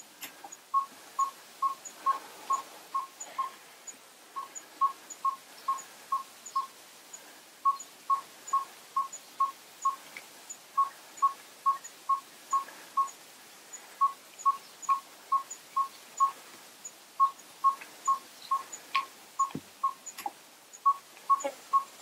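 Yellow-rumped tinkerbird singing: a single deep, hooting note repeated evenly, about two to three times a second, in series of six or seven with short pauses between series.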